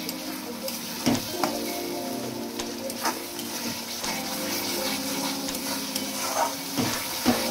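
Water poured into hot fried masala in a metal kadai, sizzling steadily, while a metal spatula stirs it in and scrapes against the pan with a few sharp clicks.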